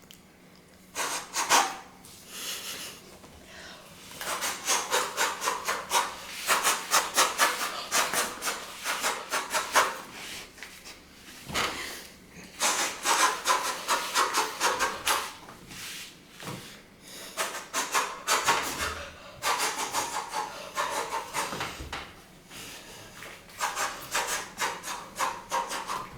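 Bouts of rapid scratching and scrabbling, many strokes a second, from a cat clawing and raking at something while it attacks, with short quiet pauses between bouts.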